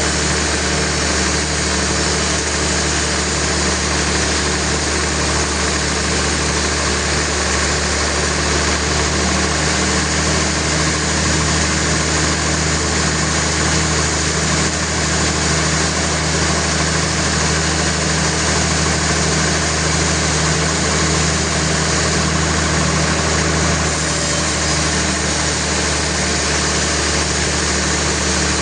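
Sawmill machinery running steadily: an unchanging engine-like hum with no cutting bursts or impacts.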